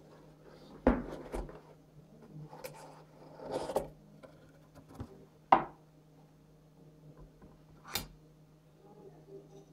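Cardboard box being handled and opened on a wooden tabletop: a few sharp knocks as it is turned and set down, and cardboard rubbing and scraping as the lid is worked open, with a last sharp tap near the end.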